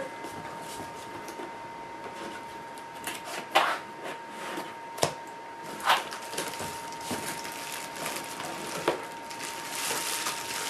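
Cardboard camera box and its packaging being handled and opened: scattered rustles and scrapes with a few sharp knocks, over a faint steady tone.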